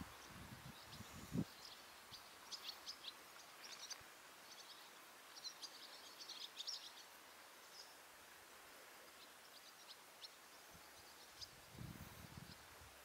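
Quiet outdoor ambience with scattered bursts of faint, short, high chirps, and a few low muffled bumps near the start and again about a second before the end.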